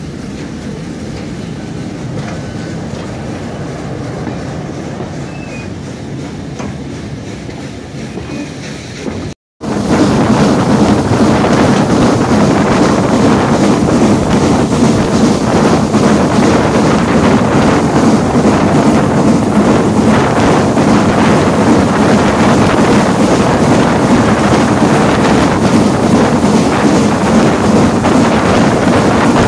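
Steam train. For the first nine seconds or so, a steam locomotive moves slowly past at the station. After a sudden cut, the train is running at speed as heard from an open carriage window: a much louder, steady rush of wheels on the rails, with wind buffeting the microphone.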